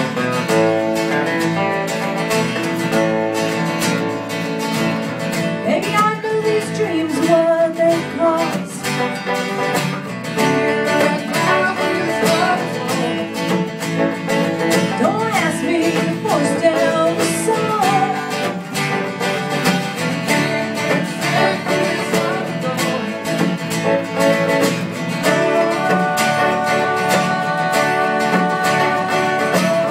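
Live acoustic country song: three acoustic guitars strumming and picking together, with a voice singing over them in the middle of the stretch.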